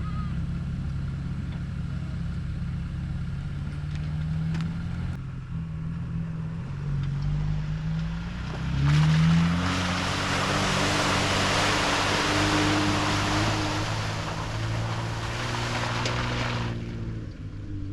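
Jeep engine running while driving, its pitch climbing about eight seconds in. A loud steady hiss lies over it for about eight seconds in the second half, then stops suddenly.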